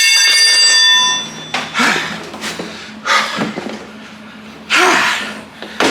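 Air escaping from a spare tire. A loud, high whistle for about the first second stops suddenly, then three shorter hisses follow about a second and a half apart, leaving the tire flat.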